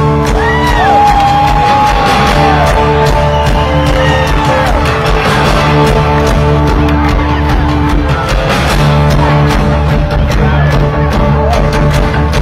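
Live rock band playing loud: electric guitars, bass guitar and a drum kit through a stage PA, with the audience cheering and whooping over it.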